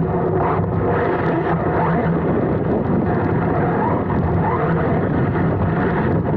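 Onboard sound of a Serpent SDX4 Evo 4wd electric RC buggy driving over grass: a loud, continuous rattle and rumble of drivetrain and tyres, with short rising whines from the brushless motor as it accelerates.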